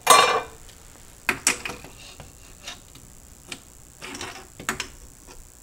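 Handling noise from a small pneumatic valve assembly being picked up and held against a mill's spindle housing to test the fit: a brief rustling clatter at the start, then scattered light clicks and taps, with a short cluster of them about four seconds in.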